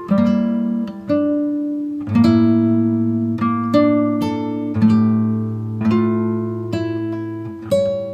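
Background music: an acoustic guitar plucking a slow melody, with a new note or chord about once a second, each ringing out and fading, over a deeper held bass note from about two seconds in.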